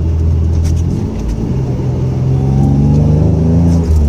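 1997 Camaro's 3.8-litre V6 accelerating. The engine note drops about a second in, climbs steadily for about three seconds as the revs build through the gear, then drops again near the end at the next shift of the T5 manual gearbox. Heard from inside the cabin.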